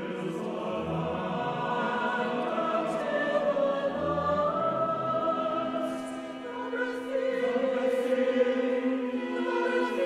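Choir singing slow, sustained chords; the lowest voices drop out about six seconds in.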